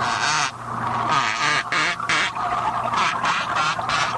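Rough-toothed dolphin underwater vocalisations: a string of buzzing pulse bursts, roughly one every half second, with faint wavering whistles over a steady low hum.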